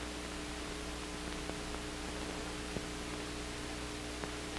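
Steady hiss and hum of an old film soundtrack between narration lines, with a few faint clicks, the clearest just under three seconds in.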